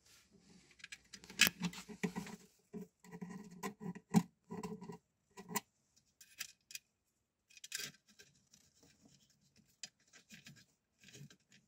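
Close-up handling sounds of hands working thin hook-up wire onto the screw terminals of a horn driver: scratching, rustling and small clicks of wire and fingers against the driver's terminals and cap. Busiest in the first half, then sparser clicks.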